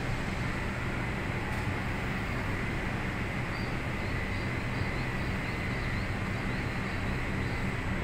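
Steady outdoor background with a low rumble and a thin high hum, and a faint run of quick, high bird chirps, about three a second, in the middle.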